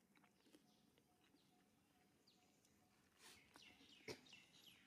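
Faint high-pitched animal chirps and squeaks in a short cluster starting a little past three seconds in, with a single sharp click just after four seconds. Otherwise near silence.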